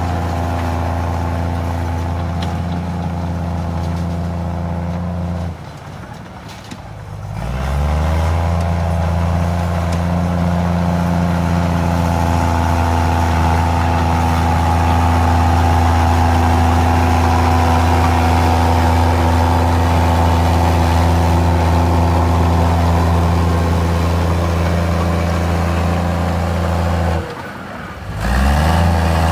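Komatsu D53E crawler bulldozer's diesel engine running hard under load. Twice, about six seconds in and again near the end, the revs drop briefly and then climb back up.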